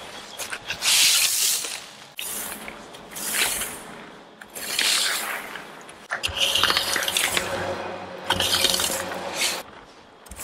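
Loose roofing gravel being raked with a metal rake: about five scraping strokes, one every second and a half or so, as the stone is spread and levelled.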